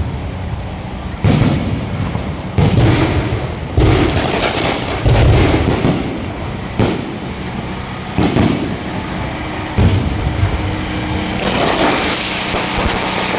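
Aerial firework shells bursting overhead: about seven deep booms, one every second or two.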